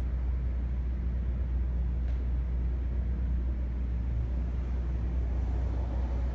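Steady low rumble of road traffic from a busy intersection.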